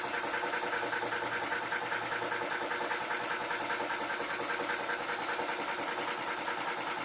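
Tuxing 4500 PSI PCP air compressor running steadily with a rapid, even pulsing as it pumps high-pressure air into an air rifle's tank.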